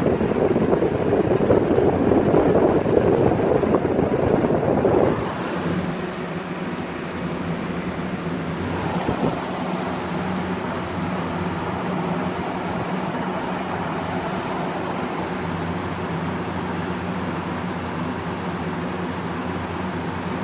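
Lasko Cyclone electric fan running with a steady motor hum. For about the first five seconds its airflow buffets the microphone in a loud gusty rush, which then drops to an even whir.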